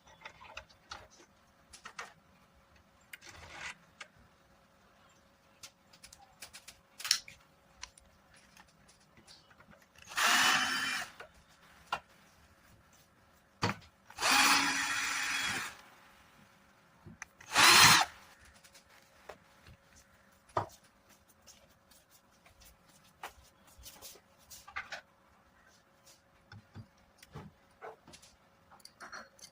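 Small power tool run in three short bursts of one to two seconds each, a whining motor, between light clicks and taps of parts being handled.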